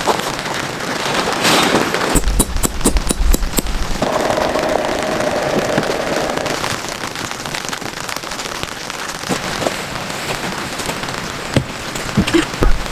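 Heavy rain pattering on tent fabric, a dense hiss full of sharp drop hits, with a low wind rumble on the microphone from about two to four seconds in.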